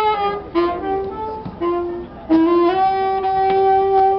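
A saxophone playing a single melodic line: a few short notes changing pitch, then one long held note from a little past halfway.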